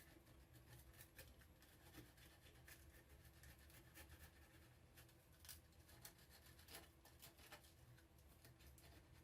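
Faint, irregular scraping and light ticks of old glue being scraped off the ends of wooden rocking-chair spindles.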